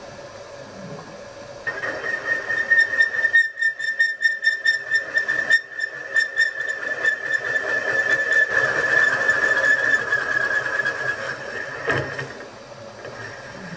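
Boring head on a milling machine taking a roughing cut through a hole in a duplex stainless steel boiler tube plate, run slow because the metal work-hardens. A steady high whistle from the cut starts about two seconds in and fades away near the end over the running spindle, with a short click just after.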